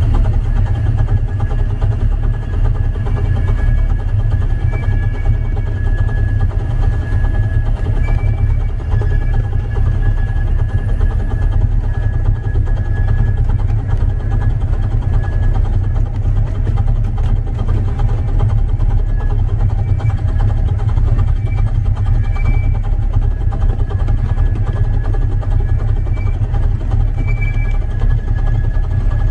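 Steady wind rumble on the microphone of a camera riding on a moving miniature train's locomotive, over the train's running noise, with faint high squeaky tones coming and going.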